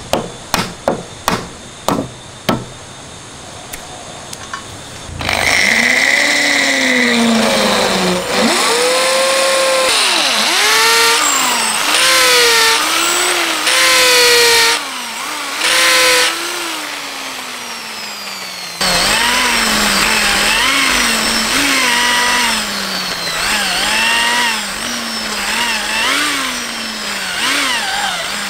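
About six hammer taps driving a wooden peg into a desk-frame joint. From about five seconds in, a cordless drill runs into the wooden frame in repeated bursts, its motor whine sagging and rising in pitch.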